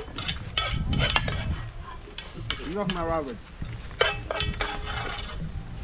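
A spoon stirring and scraping in a cooking pot: a quick, uneven run of scrapes and clinks.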